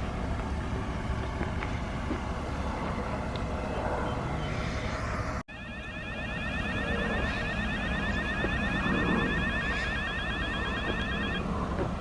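Steady vehicle and outdoor rumble. After an abrupt cut about five and a half seconds in, a high, rapidly warbling siren-like tone runs for about six seconds over the rumble, then stops.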